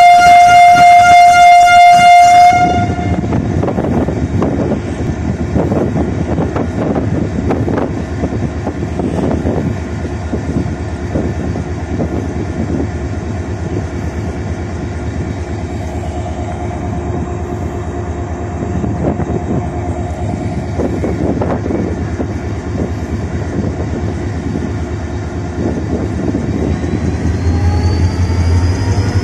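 A Pakistan Railways HGMU-30 diesel locomotive blows its horn in one loud single-note blast for about two and a half seconds. Its diesel engine then runs with a steady rumble. Near the end the engine grows louder with a rising whine as it builds power to depart.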